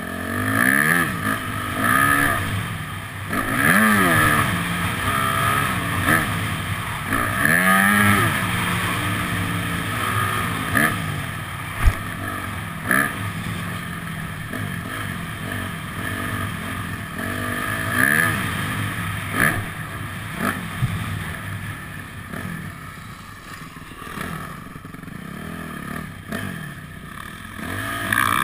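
Motocross dirt bike engine revving up and dropping off again and again as it is ridden around the track, heard close up from the bike. A single sharp knock about twelve seconds in.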